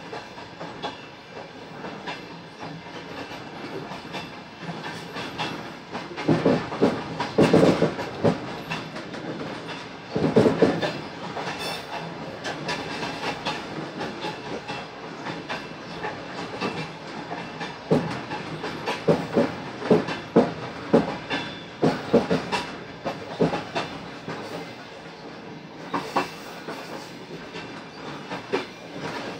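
Train wheels clattering over rail joints, heard aboard a moving passenger train: a steady rumble broken by groups of quick knocks, the loudest groups about a quarter of the way in and again around the middle.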